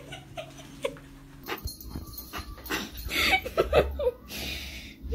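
A dog whimpering in short, pitched whines: a few spaced ones, then a quicker run of them a little past the middle.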